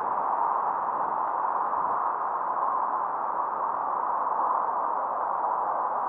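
A steady, even hiss that does not change.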